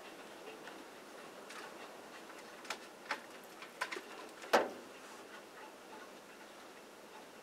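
A handful of sharp, irregular taps, about six, the loudest about four and a half seconds in, over a faint steady hiss.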